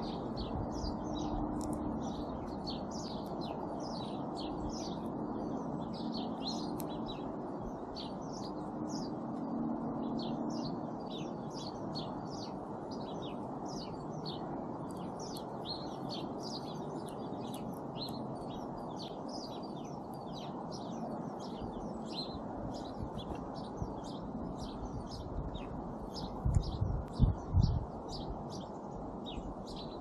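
Small songbirds chirping continuously, many short calls overlapping, over steady background noise and a low hum that fades out about ten seconds in. A few loud low thumps come near the end.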